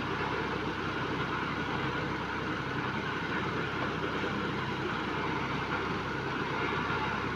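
Engine of a sand-piling rig running steadily, a constant drone with no strikes or changes.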